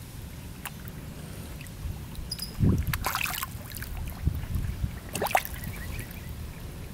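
Koi splashing at the pond surface: two short splashes, about three seconds in and again about five seconds in.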